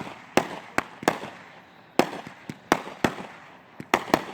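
Fireworks going off in quick succession: sharp bangs at irregular intervals, about two or three a second, some followed by a brief echo.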